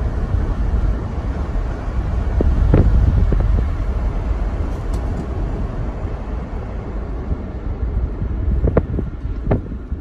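Road and wind noise in a moving Tesla electric car: a steady low rumble of tyres and rushing air, with a few short knocks about three seconds in and twice near the end.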